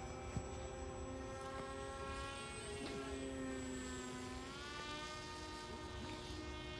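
Radio-controlled model airplane's motor and propeller droning in flight, a steady buzzing pitch that rises about four and a half seconds in and holds higher.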